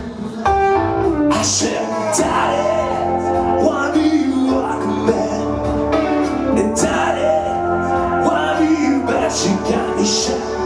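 A man singing a song over a backing track with bass, guitar and a steady beat.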